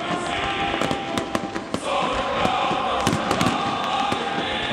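A fireworks salute: aerial shells bursting in a rapid, irregular run of sharp bangs and crackle, over the steady noise of a large crowd.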